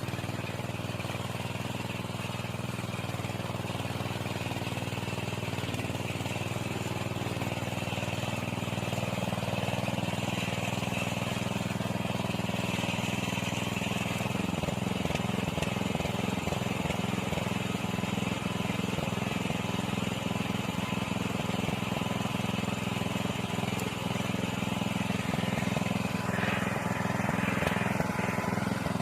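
Engine of a walk-behind soil tiller running steadily while working the ground, getting a little louder and rougher about halfway through.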